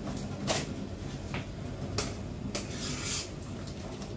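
A metal ladle scooping in a steel pot of hot asparagus water: a handful of short splashes and scrapes as soggy bread-roll pieces are lifted out, over a steady low hum.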